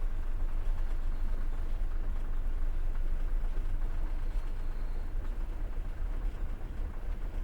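Passenger train running on the rails, heard from inside the carriage: a steady low rumble of wheels and carriage that eases a little near the end.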